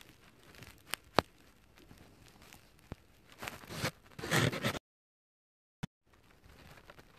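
Close rustling of bedding and handling noise on a phone's microphone: a few sharp clicks in the first second and a half, then a loud burst of rustling around the fourth second. The sound then cuts out completely for about a second.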